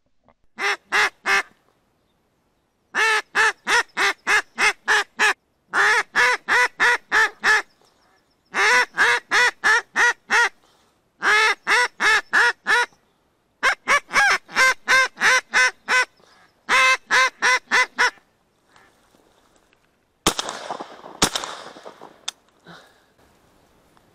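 Wooden duck call blown in long series of hen-mallard quacks (the 'осадка' landing call), eight runs of three to eight quacks each, to turn passing drakes. Then two shotgun shots about a second apart.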